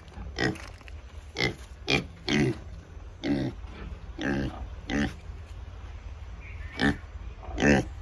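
A young Large White Yorkshire pig grunting in short calls, about nine of them, with a pause of nearly two seconds before the last two.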